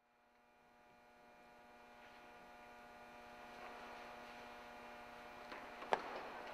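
A steady electrical hum made of several fixed tones, fading in from silence. A single sharp click comes near the end.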